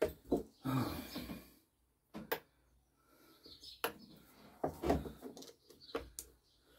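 Hand tools clicking and scraping: a screwdriver is picked up and its tip is worked against the piston of a small two-stroke engine. The light clicks and taps are scattered, with a short rustle about a second in and a quick run of taps near the end.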